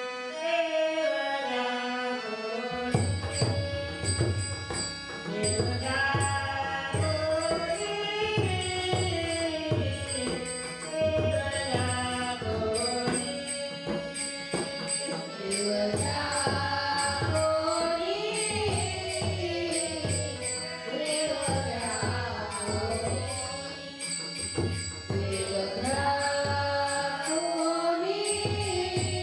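A woman singing a Marathi abhang (devotional bhajan). She is accompanied by a hand drum and small hand cymbals keeping a steady beat, and the drum comes in about three seconds in.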